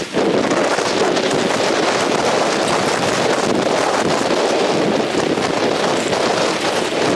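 Typhoon wind blowing hard and steadily, buffeting the microphone with a loud, rushing noise.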